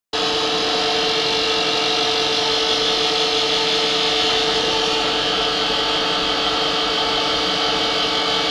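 Pillar drill running steadily while machining a steel spacer held in its vise, a constant motor-and-spindle hum with cutting noise. It comes in abruptly at the very start.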